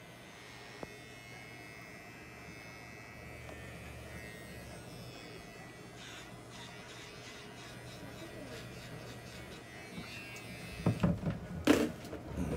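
Small electric pet clippers buzzing steadily as they shave the fur on a cat to prepare a site for drawing blood. About eleven seconds in there is a short cluster of louder, sharp sounds.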